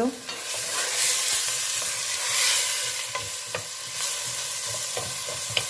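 Chopped onion sizzling as it sautés in hot oil in a pan while being stirred, with a steady frying hiss and a few light knocks of the stirring utensil against the pan.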